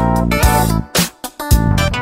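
Background music: a guitar-led instrumental with a beat, dropping out briefly in the middle.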